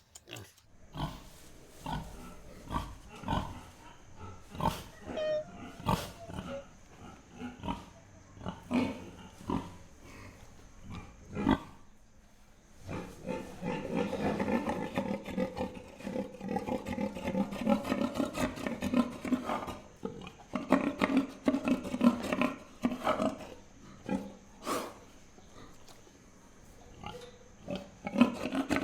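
Pigs grunting: short scattered grunts at first, then from about halfway a louder stretch of dense, overlapping grunting that comes and goes in bursts toward the end.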